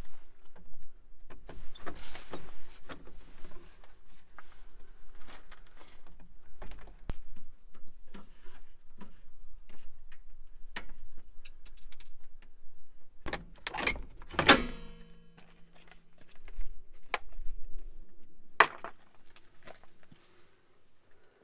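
Scattered clicks, knocks and rattles of objects being handled, with a louder clank about two-thirds of the way through that rings briefly.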